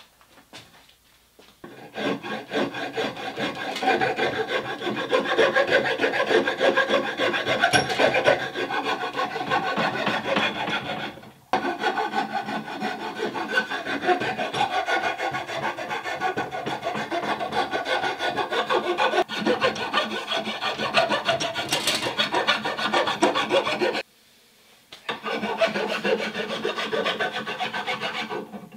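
A rasp rubbing in quick, repeated strokes along a wooden axe handle, shaving it thinner. The rasping starts about two seconds in and breaks off briefly twice.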